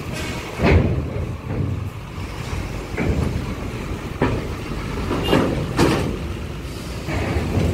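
Loaded Hino cargo truck's diesel engine running as the truck rolls slowly onto a ferry loading ramp. Several loud clanks sound as its wheels cross the steel ramp plates.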